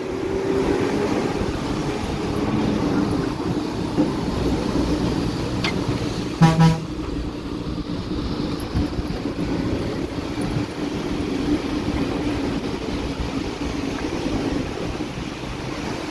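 Bus engine running steadily, with one short horn toot about six and a half seconds in.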